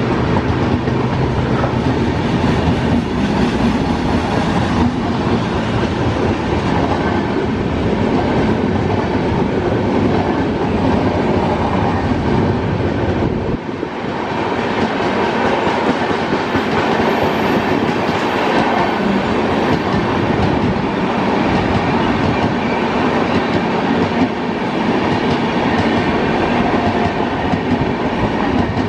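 Passenger coaches of an express train running past on the track, with a steady loud rumble of wheels on rail and the clickety-clack of the wheels going over rail joints.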